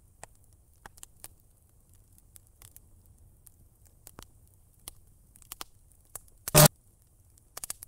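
Cartoon sound effects of electrical sparking: sparse faint crackles and clicks over a low hum, then a short loud zap about six and a half seconds in as the plug meets the socket.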